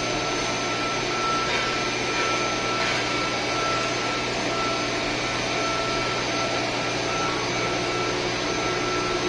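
Steady drone of industrial machinery in a power-plant hall, with a constant whining tone above it.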